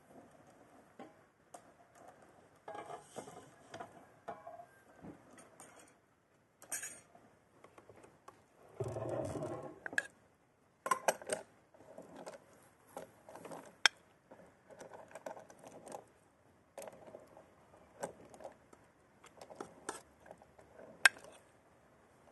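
Metal serving spoon clinking and scraping against an aluminium cooking pot and a china plate: scattered light clinks and knocks, a few of them sharp.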